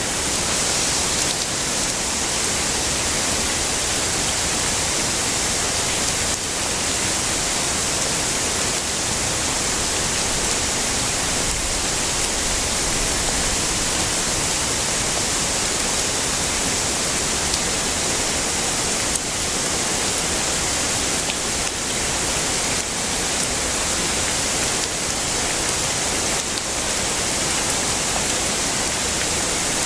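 Heavy rain falling in a steady, even hiss, with no thunder.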